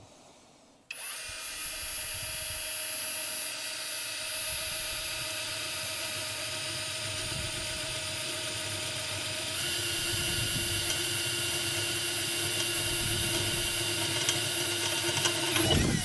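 Topshak TS-ED5 20V brushless cordless drill starting about a second in and running steadily for some fifteen seconds as a metal bit drills into an iron profile. Its tone changes and grows a little louder about ten seconds in, and it cuts off just before the end.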